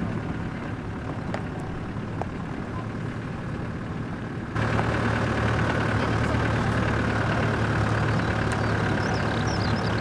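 Off-road vehicle's engine and tyres running at low speed on a rough unsealed lane, a steady low hum heard from inside the cabin. About halfway through it abruptly becomes louder, with a stronger low drone.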